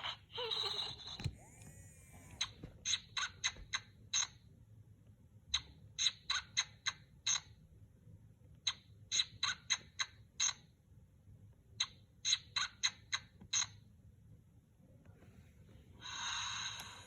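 Little Live Pets plush baby bear toy playing its electronic snoring sound through its small speaker: four groups of about six short, sharp high-pitched pulses, one group about every three seconds. It opens with a brief breathy sigh.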